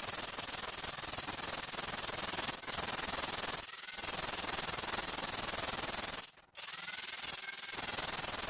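Steady abrasive rubbing on a plaster wall surface, like a crack being sanded or scraped back before repair, with short breaks and one brief stop about two-thirds of the way through.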